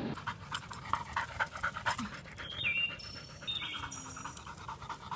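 Yellow Labrador panting in quick, uneven breaths.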